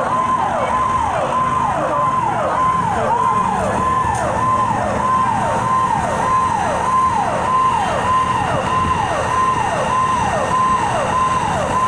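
Fire engine's electronic siren cycling fast: each cycle rises to a high tone, holds briefly, then sweeps down, a little under two cycles a second, over a steady low rumble.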